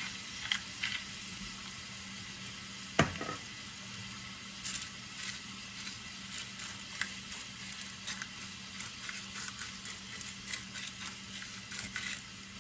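Blue crab and scallops frying in garlic butter in a stainless skillet: a steady sizzle with small crackles. One sharp knock about three seconds in.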